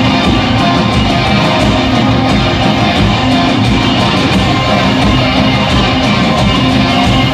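A folk metal band playing loud and live, with electric guitars over a steady low pulse.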